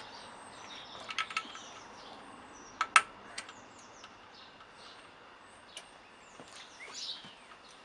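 Sharp metallic clicks and clinks of hand tools on the bike's rear swing arm bolt: a quick cluster about a second in and the loudest pair about three seconds in. Small birds chirp throughout.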